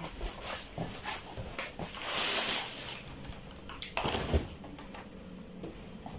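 Household handling sounds: rustling and light knocks, then a refrigerator door pulled open with a couple of sharp clunks about four seconds in.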